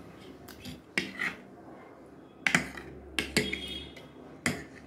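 Fork and knife clinking and scraping against a plate while noodles are being picked up, with several sharp clinks, some in close pairs.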